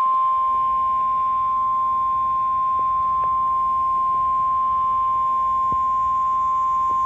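NOAA Weather Radio warning alarm tone: a single steady 1050 Hz tone held at an even level, the signal that a warning broadcast is about to follow.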